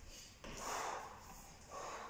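A man breathing hard and fast through the mouth from exertion during wall walks, with about two forceful breaths in quick succession.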